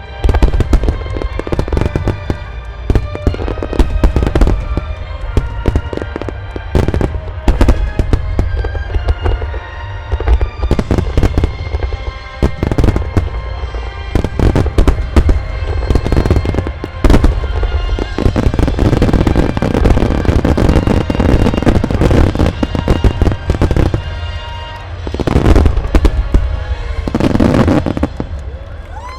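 Dense, continuous barrage of aerial firework shells bursting, many detonations a second, heard over music played for the display.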